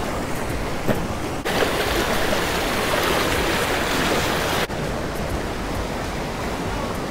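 Creek water rushing over shallow rapids, a steady noisy rush that abruptly grows louder and brighter about a second and a half in, then drops back just as suddenly about three seconds later.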